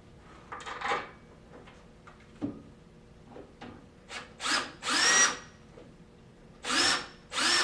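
Drill driving bolts into an aluminum chaise lounge's sling rail in several short bursts, its motor whine rising in pitch each time it spins up.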